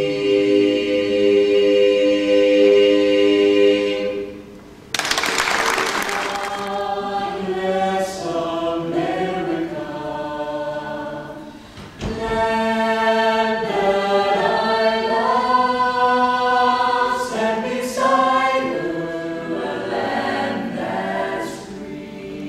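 A small mixed a cappella choir, men's and women's voices, singing in harmony. A held chord breaks off about four seconds in, a brief burst of noise follows, and the singing resumes with another short break near twelve seconds in.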